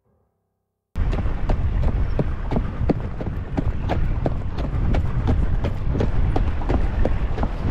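A horse's hooves striking a stony gravel track, a steady run of crisp regular hoofbeats, over a low rumble of wind on the microphone. The sound cuts in abruptly about a second in, after near silence.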